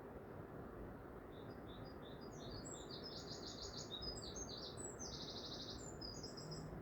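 Small songbird singing a quick run of high chirps and rapid trills, starting about a second in, over a steady low background hiss.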